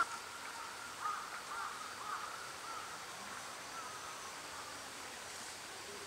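Quiet outdoor pond-side ambience: a faint steady chirring of insects, with a few short, faint distant calls now and then.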